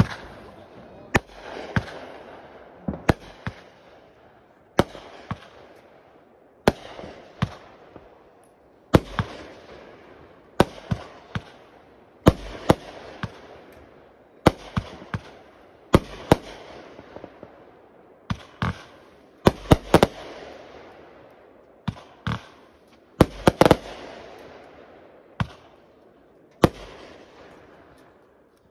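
Fireworks going off in quick succession: a sharp bang every second or two, each trailing off in a fading hiss, with several bangs close together about two-thirds of the way through.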